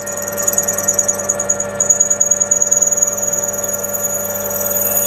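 Twist drill squealing as it cuts into the far side of the cross hole in the axle pump body turning in the lathe. A high-pitched squeal pulses at first and settles into a steady tone about two seconds in, over the lathe's steady running hum.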